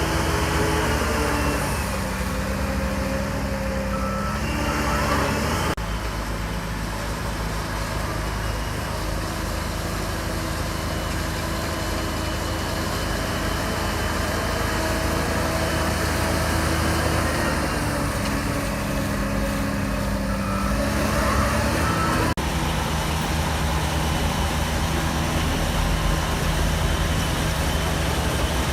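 Shantui DH17C3 bulldozer's diesel engine running steadily under working load. Its pitch drops about a second in and picks back up a few seconds later, then does the same again around eighteen seconds in.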